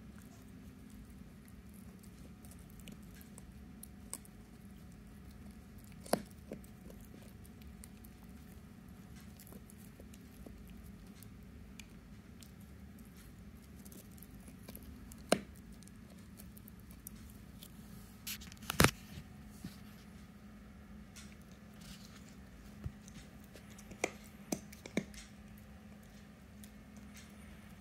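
Morkie puppy gnawing on a chew stick: soft chewing broken by scattered sharp clicks of teeth on the stick, the loudest about two-thirds of the way through and a quick run of them near the end, over a steady low hum.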